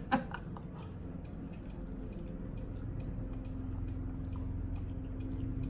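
Close-up eating sounds of noodles being slurped and chewed, with small wet mouth clicks, over the steady hum of a lawn mower engine running in the background, growing slightly louder.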